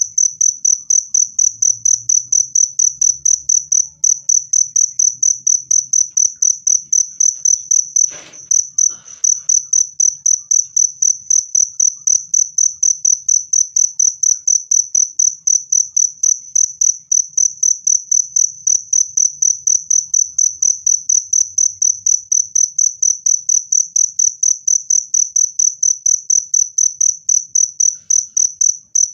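A cricket chirping loud and clear in a steady, fast rhythm of about three high-pitched chirps a second. The chirping breaks off briefly about eight seconds in, with a faint knock, then carries on.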